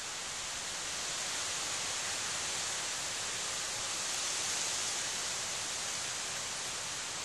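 Steady, even hiss of background noise, brightest in the upper range, with no distinct chewing or crunching clicks standing out.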